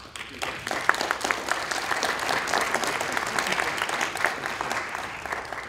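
Audience applauding, many hands clapping; it swells about half a second in and tapers off near the end.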